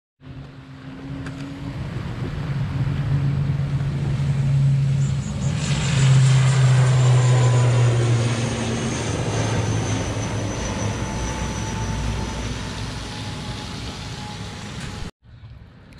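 ATR 72 twin turboprop airliner taking off and climbing away, its engines and propellers making a loud drone with a high whine that slowly falls in pitch as it passes. The sound builds to its loudest about six seconds in, eases off, and cuts off abruptly near the end.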